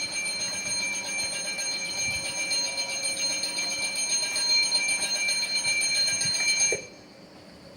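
Electric railway warning bell ringing continuously with a fast, even ring, then cutting off suddenly near the end.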